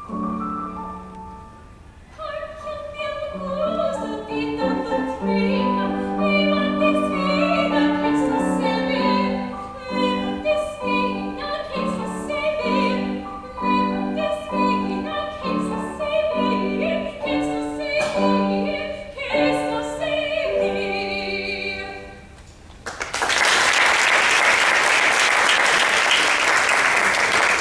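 A woman singing in classical style with grand piano accompaniment, the piano playing evenly repeated chords under her line. The piece ends about 22 seconds in, and after a brief pause the audience applauds.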